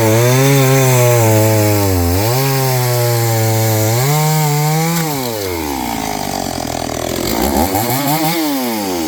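Noker 381 72cc two-stroke chainsaw running hard at a steady pitch, cutting wood, with a brief dip in revs about two seconds in. About five seconds in the revs fall away, then rise and fall once more near the end.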